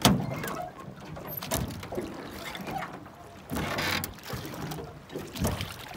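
Rowboat oars being worked: a sharp knock at the start, a few lighter knocks, and an oar splashing through the water about three and a half seconds in.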